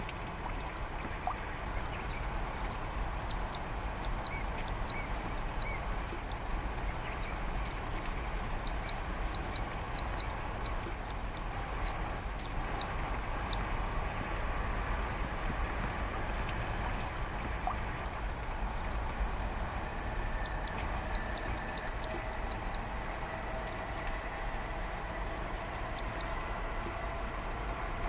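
Male zitting cisticola giving its sharp 'chat-chat' breeding-season call in several runs of quick, high clicking notes, a few to the second, over steady rain.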